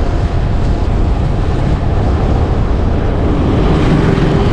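Steady rumble of a moving vehicle on the road, with wind rushing over the microphone.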